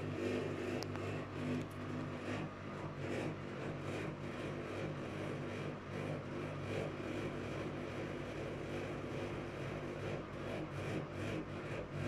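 Whirlpool FSCR90425 front-loading washing machine spinning its drum with a steady motor hum, the level swelling and dipping unevenly; the load in the drum is unbalanced.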